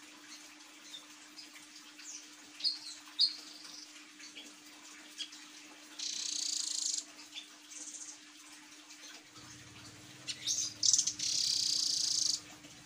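Blue nuthatch calling: a few sharp high chirps, then harsh, buzzy high trills, one about a second long about six seconds in and a louder one of about two seconds near the end.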